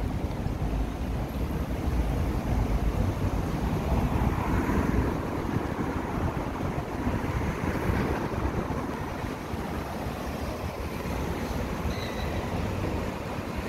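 City street noise: a steady rumble of road traffic that swells as vehicles pass, about four and eight seconds in.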